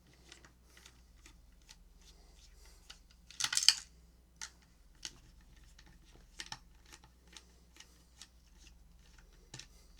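Small clicks and taps from the speaker and its parts being handled and worked apart, with a louder cluster of rattling clicks about three and a half seconds in.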